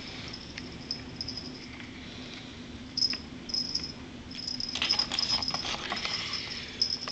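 A cat's claws scratching and scrabbling on a sisal-wrapped cat tree as it climbs and plays, in short high rustles and clicks. The rustling is busiest about five seconds in.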